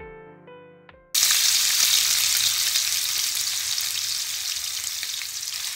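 Chopped sausage pieces frying in hot oil in a pan, sizzling steadily. The sizzle cuts in suddenly about a second in, after the last notes of piano music fade out.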